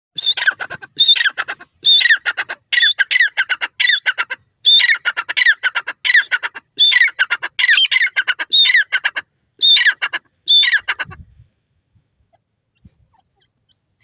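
Grey francolin calling loudly: a harsh phrase, each a falling note followed by a quick run of clicks, repeated over a dozen times about once a second, stopping about 11 seconds in.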